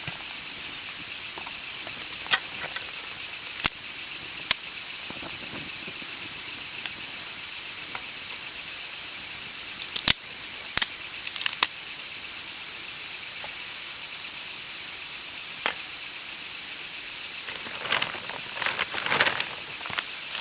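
A steady high-pitched outdoor drone with a few sharp clicks, and some rustling near the end.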